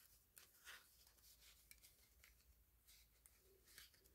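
Near silence, with faint scattered rustles and light ticks of paper bills being handled and tucked into a cash-envelope binder.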